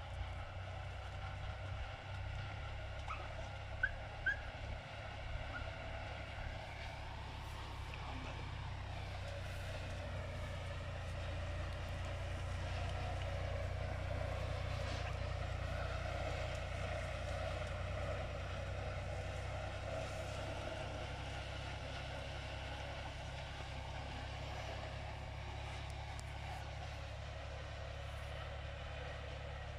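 A steady, distant engine drone with a low hum under it, its pitch drifting slowly and swelling a little in the middle. Two short sharp sounds stand out about four seconds in.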